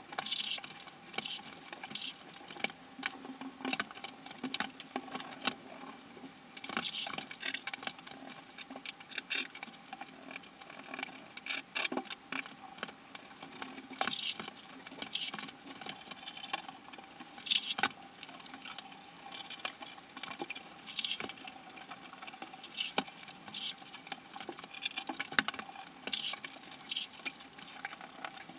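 Grouting work on ceramic subway wall tile: irregular short scrapes and rubs of a tool dragged over the tile surface.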